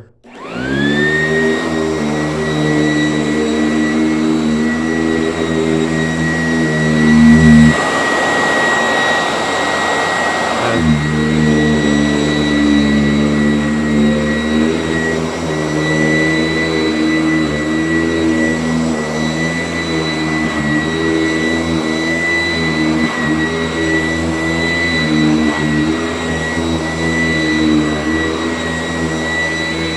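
Sanitaire S675 commercial upright vacuum switched on, its motor spinning up to a steady high whine over a low hum, then running steadily. For about three seconds, a little over a quarter of the way in, the hum drops out under a louder rushing noise.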